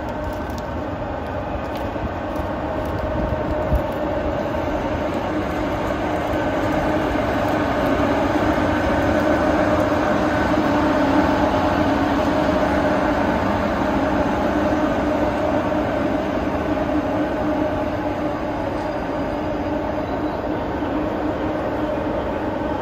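JNR EF64 0-series electric locomotive running light at walking pace, its blowers giving a steady hum with several constant tones over a low rumble. It grows louder as the locomotive draws level, about ten seconds in, then eases off a little.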